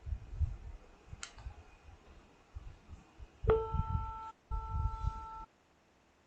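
Simulated buzzer of a PICSimLab microwave-oven program sounding two steady beeps, the first just under a second long and the second about a second, signalling that the preheat time is up. A single click comes a little over a second in.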